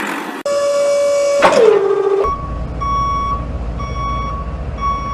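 Vehicle reversing beeper sounding about once a second over a low engine rumble. Before it there is a steady hum and a sudden sound that falls in pitch.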